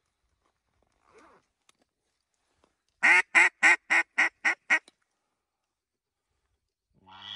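Mallard duck call blown as a hen call: a string of seven loud quacks, about four a second, trailing off slightly in loudness, with one more quack starting near the end. It is calling to a flock of mallards passing overhead.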